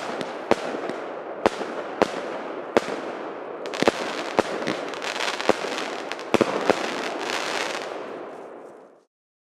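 Baby Fighter firework cake firing: sharp bangs every half second to a second over a steady crackle of bursting stars. It fades away near the end and stops short.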